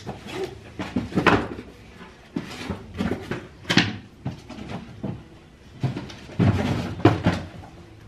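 Bags, boxes and other closet clutter being moved and rummaged through: irregular knocks and bumps with rustling of paper and plastic, the sharpest knocks about a second in, just under four seconds in and near the end.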